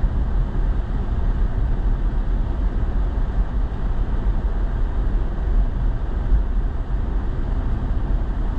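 Steady low rumble of engine and tyre noise heard inside a moving truck's cabin.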